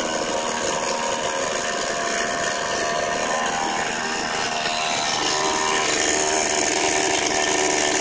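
Brand-new DevonPro 58cc two-stroke chainsaw with a 22-inch bar running at speed on its first test run. Its engine pitch rises a little about five seconds in.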